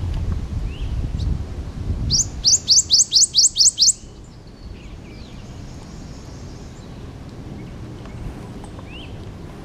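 Prothonotary warbler singing one song: a quick run of about eight loud, ringing notes, each sliding sharply upward, starting about two seconds in and lasting under two seconds.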